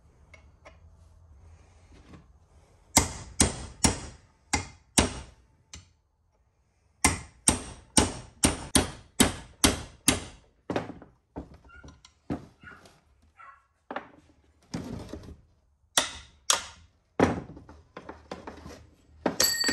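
Hammer striking a steel punch to drive the steel shaft out of a CFMOTO side-by-side's stock A-arm bushing: sharp metal-on-metal blows in quick runs of about three a second, with lighter knocks between. A brief ringing metal clink near the end.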